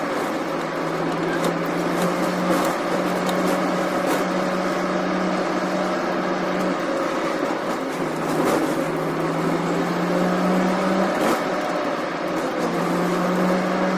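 Car engine heard from inside the cabin while driving, over road noise. Its hum climbs slowly in pitch as the car pulls, then breaks off and returns lower a few times, as at gear changes.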